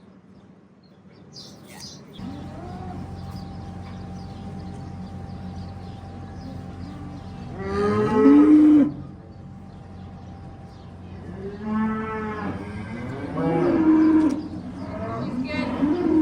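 Beef heifers mooing: one long, loud moo about halfway through, then several more toward the end. Under them is a steady low hum that starts about two seconds in.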